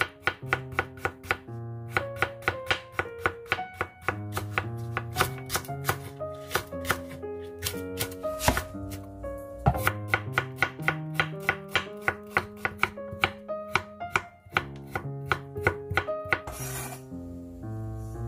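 Chef's knife chopping vegetables on a bamboo cutting board, first daikon radish and then onion. The strikes come in a quick, steady run of about three a second, over background music with plucked notes.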